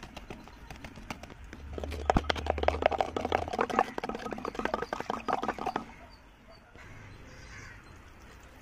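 A wooden stick stirring ragi flour and water in a small clay pot, with rapid knocks and scrapes against the pot's sides for about four seconds before it stops.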